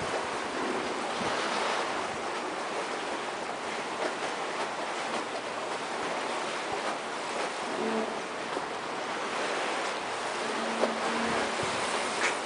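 Sea washing along the hull of an anchored container ship, a steady rushing hiss heard from the open side deck. A faint low hum comes in briefly twice in the second half.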